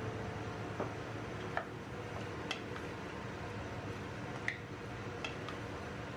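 Wooden spatula clicking and scraping against the metal pressure cooker as potato cubes are stirred in oil and spices: a handful of scattered sharp clicks over a steady background hiss.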